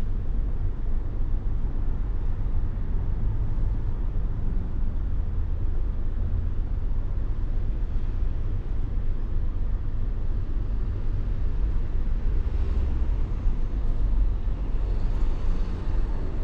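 In-car driving noise from a Smart fortwo cabrio with its roof open, moving through city traffic: a steady low rumble of road, wind and engine noise, with a little more hiss twice near the end.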